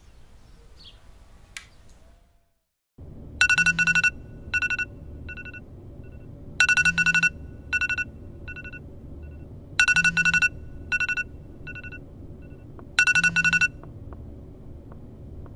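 Smartphone alarm tone ringing: groups of high, clean beeps with fading repeats, a new group about every three seconds. It starts about three seconds in and stops near the end as a hand reaches to the phone.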